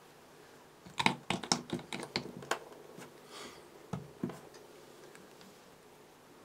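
A quick run of about ten small, sharp clicks and taps, then a soft rustle and two duller knocks: small tools and materials being handled at a fly-tying bench while the head is varnished and the hook eye cleaned.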